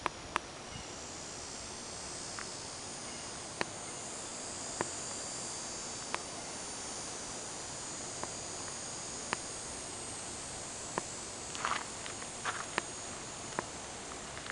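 Steady high-pitched chorus of insects trilling, swelling a little in the middle, with scattered sharp clicks here and there and a short cluster of them near the end.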